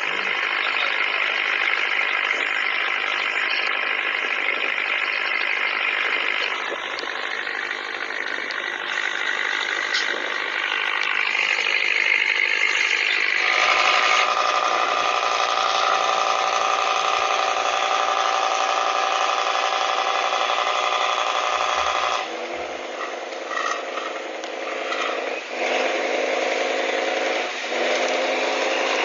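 Pop-pop toy steam boats running: a fast, continuous putt-putting rattle from the boats' little boilers. Its pitch shifts suddenly about halfway through and again near three quarters of the way.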